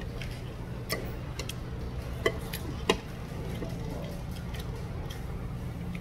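Stainless steel chopsticks and spoon clicking against dishes while eating, a scattering of light clicks with two sharper ones near the middle, over a steady low hum.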